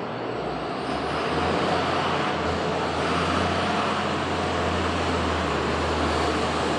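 Tractor's diesel engine running steadily as the tractor drives slowly along, growing a little louder about a second in.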